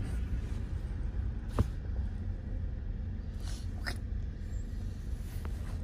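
Steady low rumble of road and engine noise inside a car cabin, with a single short click about a second and a half in and a faint brief squeak near four seconds.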